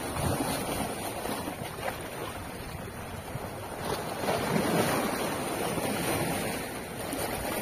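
Small sea waves washing and splashing around a rock at the water's edge, surging louder for a couple of seconds in the middle, with wind buffeting the microphone.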